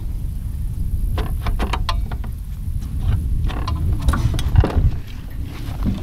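Clicks, knocks and rattles of a bow-mount trolling motor's mount and shaft being worked by hand as its freshly retied pull cord is tested, over a steady low rumble.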